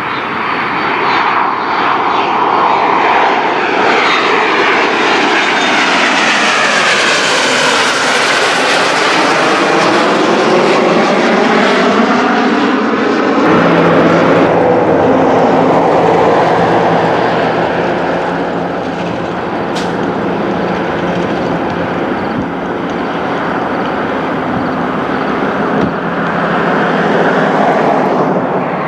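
Jet aircraft flying past low in formation, their engine noise swelling and then sweeping down in pitch as they pass. About halfway through the sound cuts abruptly to a different steady jet engine noise, which swells again near the end as a fighter jet climbs away.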